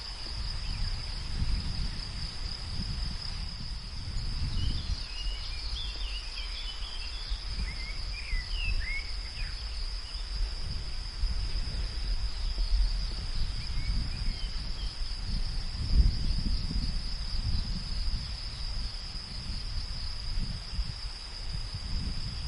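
Field ambience: a steady high-pitched insect drone, with gusts of low wind rumble. A few short bird chirps come about five to ten seconds in.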